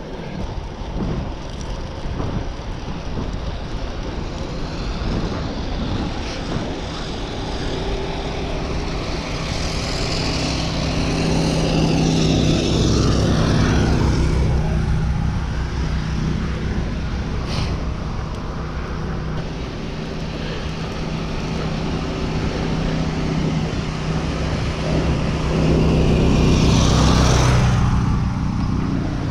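Steady wind and road noise from a bicycle being ridden on pavement: a rushing hiss over a low rumble and hum. It swells louder about halfway through and again near the end.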